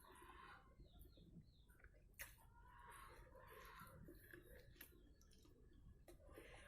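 Faint chewing and mouth sounds of someone eating fried rice, coming in irregular clumps, with one sharp click about two seconds in.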